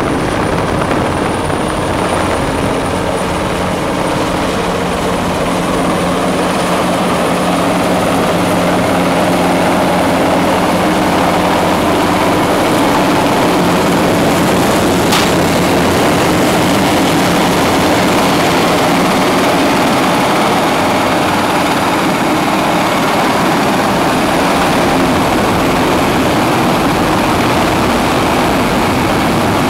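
Large offshore helicopter's rotor and turbines running loud and steady as it flies in over the sea and sets down on a helideck. There is one short click about halfway through.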